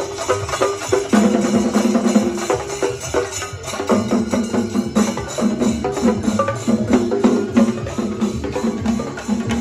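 Chenda drums played with sticks in a fast, dense rolling rhythm, as in a Kerala chenda melam. A held pitched tone comes and goes in phrases over the drumming.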